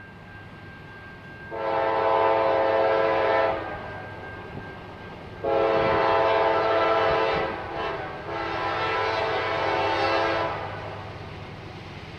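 An approaching diesel locomotive sounds its multi-chime air horn in long blasts: one of about two seconds, then after a pause a longer run that briefly dips about eight seconds in and stops about ten and a half seconds in. A low rumble from the train runs underneath.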